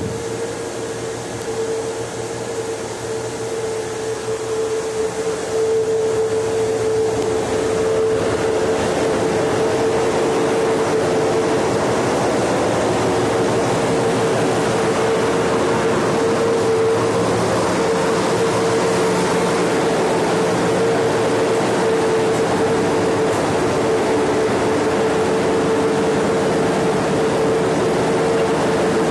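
Steady machinery and ventilation noise below decks in a cable-laying ship's steel interior, with a constant droning hum tone. It grows louder about six seconds in and stays loud.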